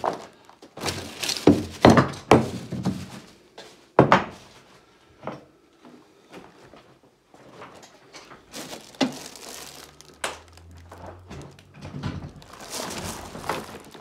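Scattered knocks and thuds with some crinkling as objects and debris are handled and moved about, the loudest thuds about two seconds in and again about four seconds in.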